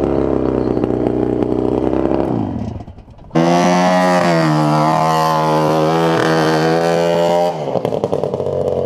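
440cc two-stroke snowmobile engine on a go-kart, running. The note eases off and fades about two seconds in, then a loud, steady high-revving run cuts in suddenly and drops back to a lower, rougher note near the end.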